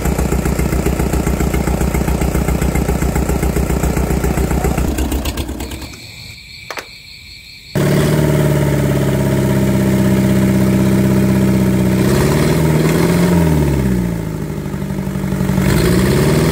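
Mitsubishi 4D31 four-cylinder diesel engine running bare on the ground, steady at first, then fading out about five seconds in. After a short lull with a single click it is running again, and near the end its speed rises and falls back twice.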